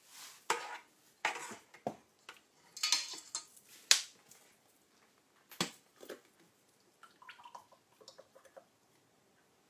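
Kitchen handling sounds: a metal spoon clinking and scraping in a stainless steel mixer bowl and bottles and packets being knocked and set down on the counter, a series of sharp clicks with the loudest about four seconds in. Near the end, oil is poured from a plastic bottle into a glass, a soft, quieter trickle.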